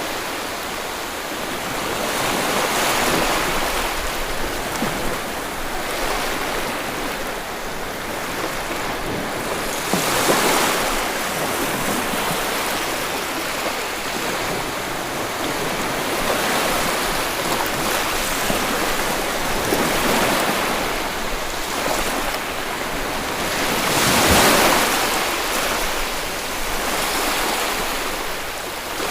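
Sea waves washing on a shore, a steady rush with louder surges as waves break, the strongest about ten seconds in and again near the end.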